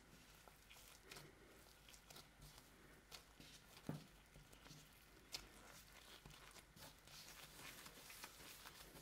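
Faint, scattered light taps and soft rustling of hands at work in bread making, with two sharper taps about four and five and a half seconds in.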